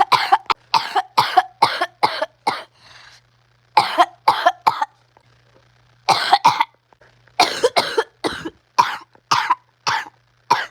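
A person coughing hard and repeatedly in fits: quick runs of sharp coughs broken by short pauses. It is an uncontrollable coughing fit.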